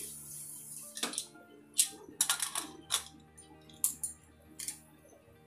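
Aluminium pressure cooker lid being fitted and locked onto the pot: a short hiss, then a series of sharp metal clicks and clanks, over steady background music.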